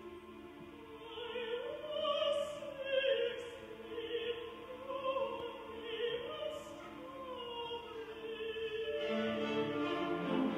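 A woman singing a classical solo in an operatic style, her voice wavering with vibrato, over sustained string-orchestra accompaniment. The voice enters about a second in, with the words "I was sixteen, lonely and starving".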